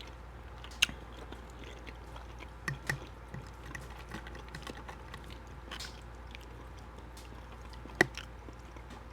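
Close-miked chewing and mouth sounds of a person eating shrimp Alfredo pasta. A few sharp clicks stand out, about a second in, near three seconds and near the end.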